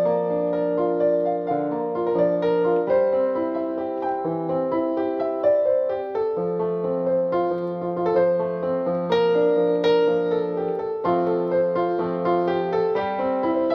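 Electronic keyboard played with both hands in a piano voice: a long-held low bass note under changing chords and melody notes, in the key of F.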